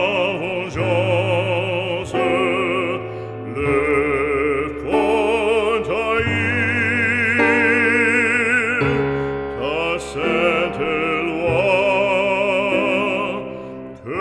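Background music: an operatic voice singing sustained notes with wide vibrato over classical accompaniment.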